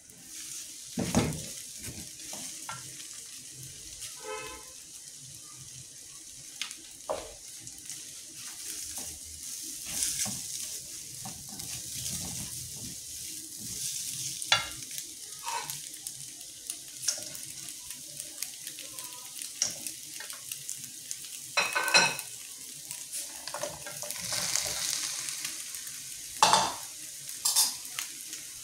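Eggs and plantain sizzling in hot oil in a wok, with a steady high hiss, while a silicone spatula scrapes and knocks against the pan. Several louder clacks stand out, the loudest about two thirds of the way through.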